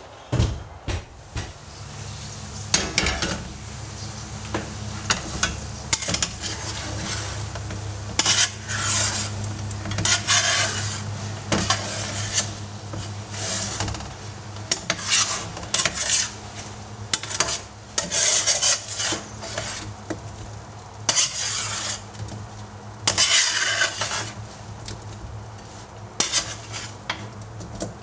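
A metal spatula scraping and tossing parboiled potato chips in a hot, oiled metal pan, in many irregular strokes, with a sizzle. A steady low hum runs underneath, and there is a low thump at the very start.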